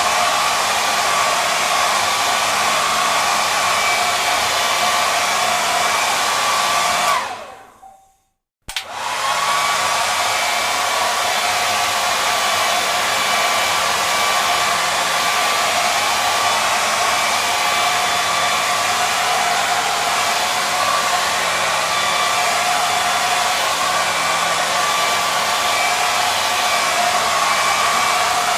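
Hair dryer blowing with a steady whine. About seven seconds in it is switched off and winds down with falling pitch into a second of silence, then it is switched back on and runs steadily again.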